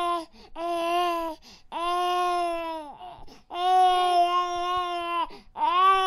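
Baby crying in a run of long wails, each held steady for one to two seconds and dropping in pitch at its end, with short breaths between.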